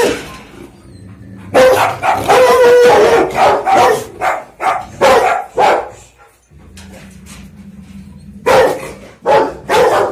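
Rottweiler barking in a rapid run of loud barks, then a pause of about two seconds, then a few more barks near the end.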